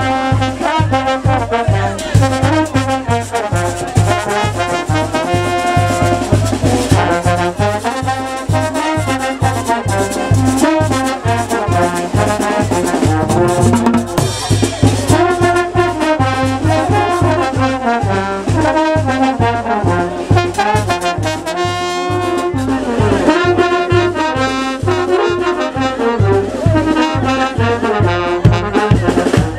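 A live brass band playing: trumpets and tubas carry the melody over a steady beat from a bass drum and congas.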